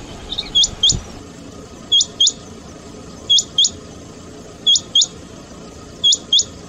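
Male rain quail calling: two quick, high, down-slurred whistled notes about a third of a second apart, the pair repeated five times at even intervals of about a second and a half.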